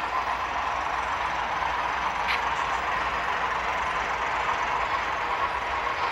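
HO scale model train running on the layout's track: a steady whirring rush of wheels and motor, with a faint brief squeak about two seconds in.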